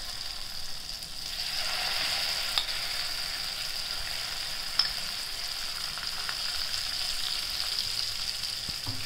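Almond paste sizzling in hot ghee in a kadhai: a steady frying hiss that grows louder about a second and a half in as more paste goes into the pan, with two light clicks along the way.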